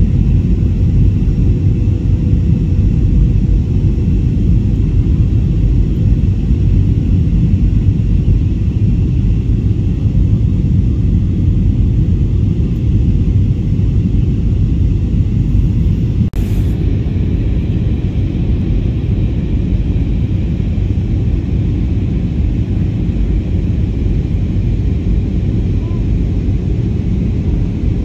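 Airliner cabin noise on descent: a steady low roar of engines and airflow. A brief click about sixteen seconds in, after which the hiss sounds slightly duller.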